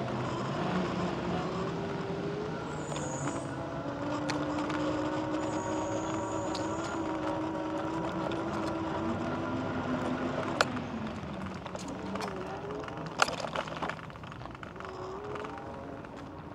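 The hum and rumble of a vehicle rolling along a rough paved path, with a steady pitched whine that drifts slowly up and down. A few sharp knocks come through, the loudest about ten and thirteen seconds in.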